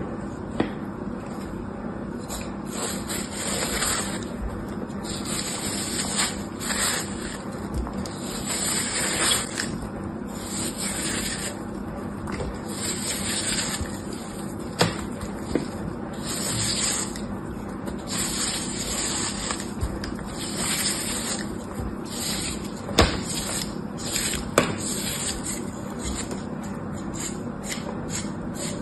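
A small blade scraping and cutting through a scored block of hard soap, with repeated scratchy strokes about once a second as the cubes crumble off. A few sharp clicks come in the middle and later part.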